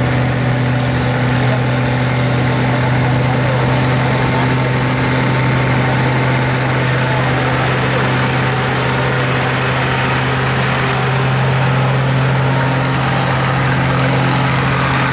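Diesel farm tractor engine running at a steady speed, a low even drone with no revving.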